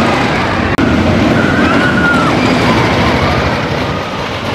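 Wooden roller coaster train running over its wooden track, a loud steady rumble with wavering higher sounds over it. The sound cuts out for an instant less than a second in, then resumes.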